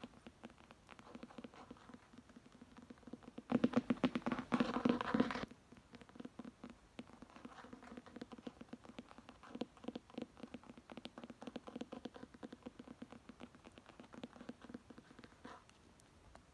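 Rapid fingernail tapping and scratching on a book, a dense run of small clicks, louder and busier for a couple of seconds about four seconds in.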